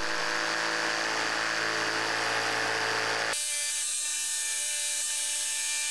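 Jigsaw running steadily, its blade tilted for a back cut, as it saws along the moulded profile of a mitred baseboard end to cope it. About three seconds in the sound changes abruptly, losing its low hum and turning hissier.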